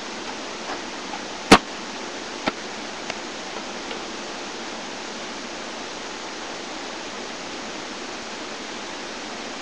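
Steady hiss with one loud, sharp thump about a second and a half in, then two fainter knocks about a second later.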